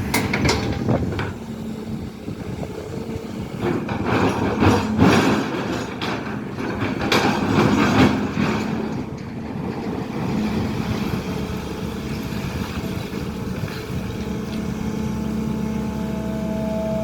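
SANY hydraulic excavator running as it digs, with knocks and scrapes through the first half, then a steadier engine drone.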